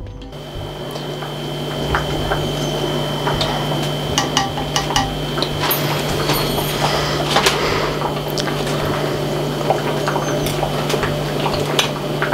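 A metal ladle and spoon clinking and scraping in a ceramic pot of liquid curry, with many short sharp clicks scattered throughout, over a steady hiss and low hum.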